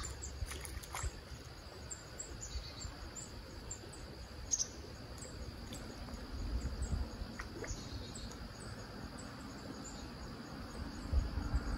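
Quiet outdoor ambience: a steady high insect trill with short high chirps repeating through it, over a faint low rumble.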